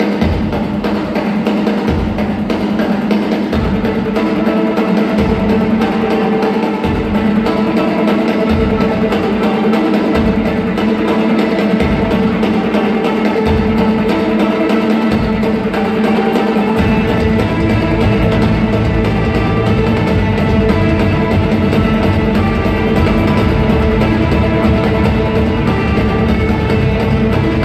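Live orchestra playing film music: sustained low chords over a low pulse that repeats every second or two, and turns into a continuous low drone about seventeen seconds in.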